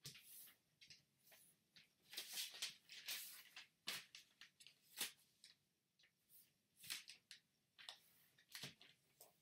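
Faint rustling and crinkling of a large sheet of origami paper being folded and slid by hand, with several sharp crisp ticks as folds are pressed and creased.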